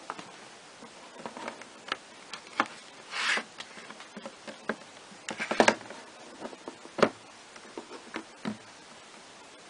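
Handling noise: scattered, irregular clicks and knocks, with a short rustle about three seconds in and the loudest knocks a little past the middle.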